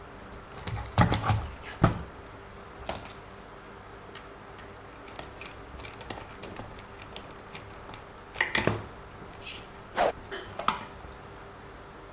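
Scattered clicks and light knocks of small plastic RC car suspension parts being handled and pushed into place, with a cluster about a second in and more around eight and a half and ten seconds in.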